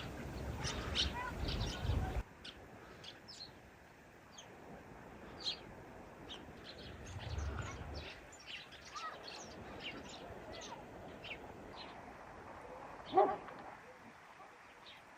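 Small birds chirping: many short, high chirps repeating irregularly.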